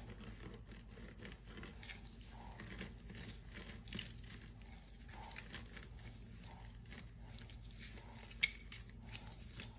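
Half a lemon being twisted and pressed on a plastic reamer juicer: faint squelching and creaking with many small clicks and crackles, and one sharper click near the end.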